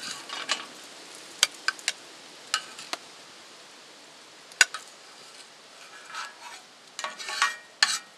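Plastic spatula scraping and tapping against a heavy fry pan and a plate as scrambled eggs are lifted out: a string of sharp clicks, the loudest about halfway, then a run of scraping near the end. A faint sizzle from the hot pan underneath.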